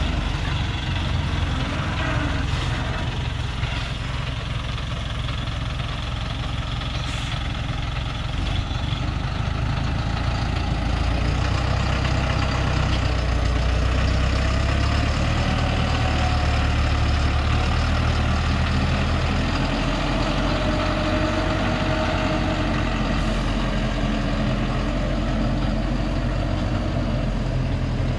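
Engine of a heavily loaded timber truck pulling slowly through mud on a dirt track, running steadily under load. It grows louder about ten seconds in as the truck works past, with the engine note shifting as it goes.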